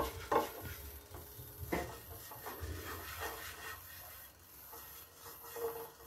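Silicone pastry brush rubbing oil around a nonstick frying pan, with a few light knocks of the brush against the pan in the first couple of seconds.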